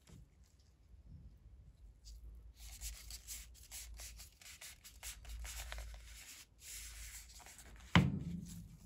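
Gloved hands rubbing against and handling a paper cup of rolled ice cream, a scratchy rustle, then a single sharp knock near the end as the cup is set down on the steel cold plate.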